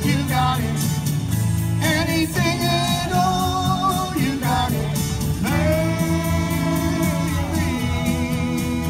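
Live song performance: a singer with electric guitar and a backing track, the voice moving between short sung phrases and one long held note with vibrato a little past halfway.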